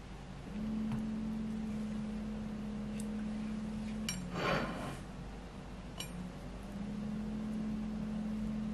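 A steady hum from a small motor or appliance that cuts out with a click about four seconds in. A brief rush of noise follows, and the hum starts up again a couple of seconds later.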